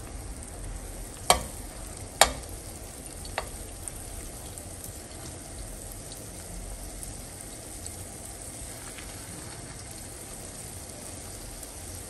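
Green-bean and egg fritters frying in shallow oil in a pan: a steady sizzle. About a second in come two sharp clinks of a metal spoon against the pan, a second apart, then a fainter click.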